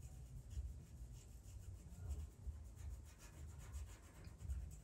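Pastel pencil scratching faintly across PastelMat paper in short, irregular strokes, over a low uneven rumble.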